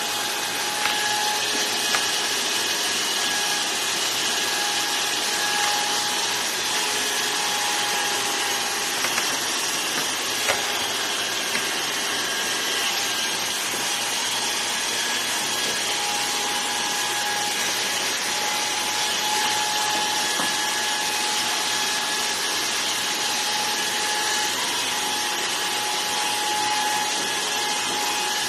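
Electric hair clippers running steadily with a constant buzz, with a few light clicks along the way.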